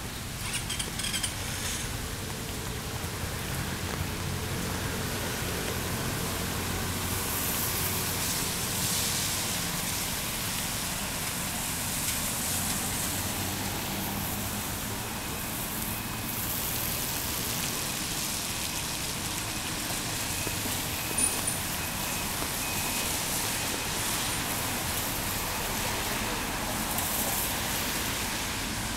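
Street traffic on a wet road in the rain. A low vehicle engine hum runs through the first half, and tyre hiss from passing vehicles swells around eight seconds in and again near the end.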